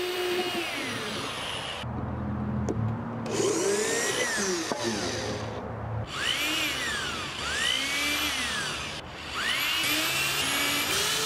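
Corded electric drill boring starter holes into a plywood tabletop. Its motor whines up and back down about four times as the trigger is squeezed and released, each hole taking about a second and a half, with abrupt breaks between some of them.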